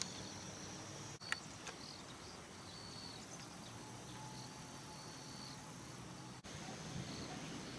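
Faint insects chirping steadily over a soft hiss of outdoor ambience, with one small click about a second in.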